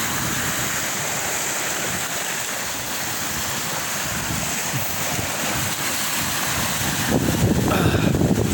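Surf breaking and washing against a rocky shore, a steady rush of water that swells louder about seven seconds in, with wind buffeting the microphone.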